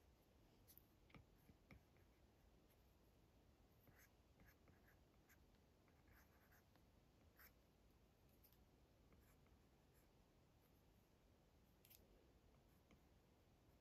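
Faint, irregular taps and light scratches of an Apple Pencil's tip on an iPad screen during sketch strokes. Single small ticks come between short clusters of them.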